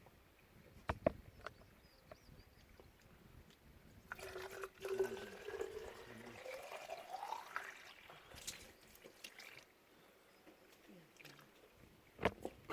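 Well water being poured into a container, the pitch of the filling rising steadily as it fills over a few seconds. A few light knocks come about a second in and again near the end.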